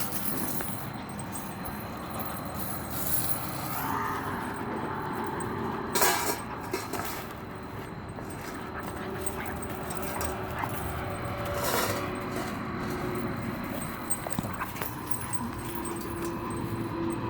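A dog playing with its toy: low dog sounds over steady background noise, with two short knocks about six and twelve seconds in.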